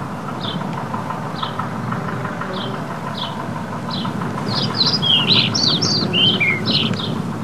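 Wild birdsong: a bird repeats a short, high, falling chirp about once a second, and from about four and a half seconds in a louder run of varied, quicker song notes breaks in for a couple of seconds. Under it runs a steady low rumble.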